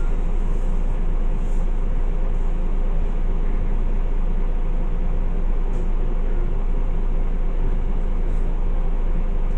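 MAN A22 single-decker bus running, a steady low diesel rumble that holds an even level with no revving.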